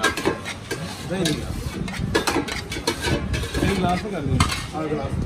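Steel bowls and pots clinking and scraping as lassi is dished out, with men's voices talking over it.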